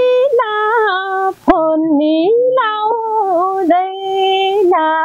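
A woman singing a Nepali folk song (lok geet) unaccompanied, drawing out long held notes with ornamented slides between them and brief pauses for breath.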